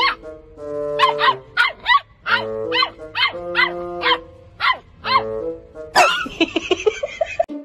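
Puppy yapping in a quick series of short, high-pitched barks, two or three a second. Background music with held notes plays underneath. About six seconds in, a loud harsh burst breaks in and trails off in rapid pulses.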